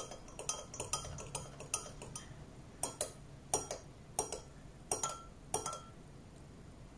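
A metal spoon clinking against the sides of a glass measuring jug while stirring a thick, slightly lumpy mix of PVA glue and water. Irregular clinks come about two a second, some ringing faintly, and stop about six seconds in.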